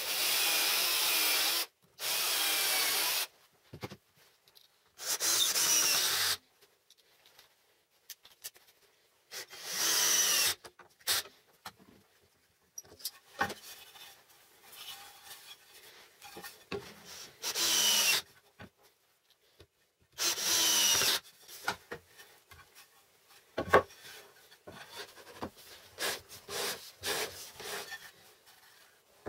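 Cordless drill running in short bursts into wood, six times, each about a second long. Between the bursts and after them come fainter scrapes and rubbing of wooden parts being handled, with one sharp knock about two-thirds of the way through.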